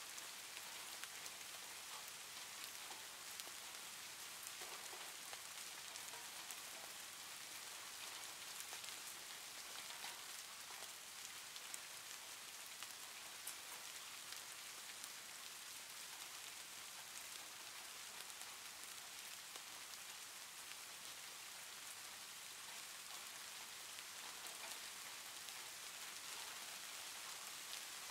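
Steady, even rain-like hiss with faint scattered ticks and crackles.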